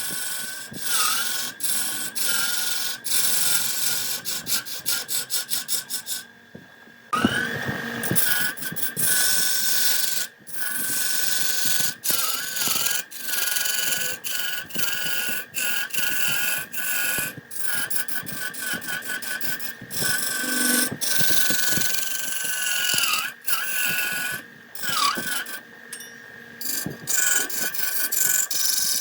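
Wood lathe spinning a wooden blank while a turning tool cuts and scrapes it: a rough rasping with rapid clicks over a steady, slightly wavering high whine. The cutting drops away briefly about six seconds in, then resumes.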